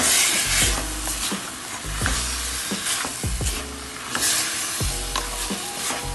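Pork pieces sizzling in hot oil and caramelized brown sugar in a pot while being stirred. The sizzle swells loudest at the start and again about four seconds in, as the meat is turned.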